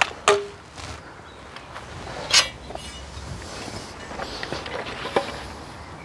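Hand tools being handled and set down on a timber beam, a tape measure and a metal speed square: a few sharp clicks and knocks, the loudest about two and a half seconds in, with a low steady background between them.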